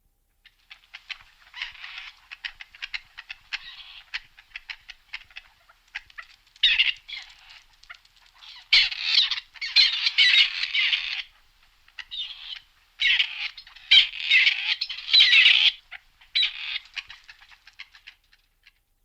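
Grey partridge calling: harsh, grating chatter in repeated bursts, with short pauses between them.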